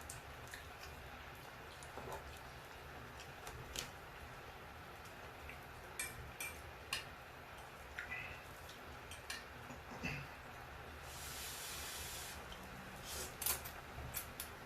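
Eating sounds: scattered short mouth clicks and chewing noises, with a brief hissy stretch about eleven seconds in.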